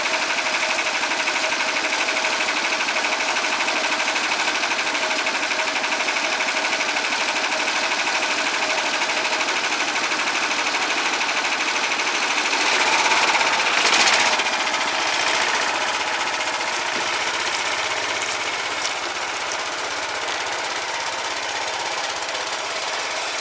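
Single-cylinder Lifan 15 hp engine of a homemade karakat all-terrain vehicle running with a fast, steady knocking beat, warming up after a cold-weather start; it picks up briefly about halfway through.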